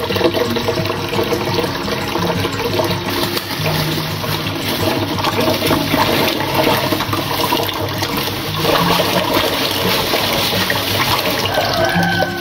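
Kitchen tap running hard into a stainless steel bowl of water in a steel sink, a steady splashing rush that starts abruptly. Partway through, dry beans are tipped in from a plastic bag and rinsed under the stream.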